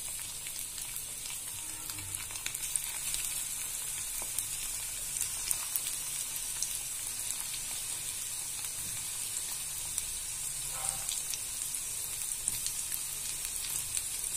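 Cornflour-and-masala-coated boiled egg pieces deep-frying in hot oil in a kadai: a steady sizzle with many small crackling pops.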